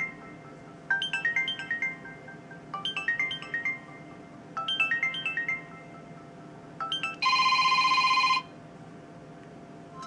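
Samsung Galaxy Mini 2's stock ringtones previewed through its loudspeaker as they are picked from the list. A short run of quick chime notes plays three times, starts a fourth time and is cut off, then a buzzing tone sounds for about a second before stopping.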